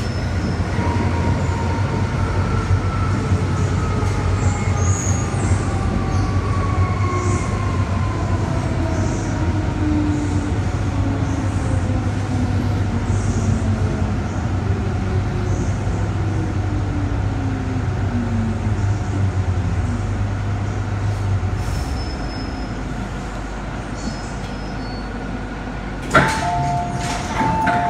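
MTR Island Line M-Train electric multiple unit braking into a station: several whining motor tones fall steadily in pitch over the running noise until the train stops about 21 seconds in and the low hum drops away. Near the end a click and a two-tone electronic chime sound.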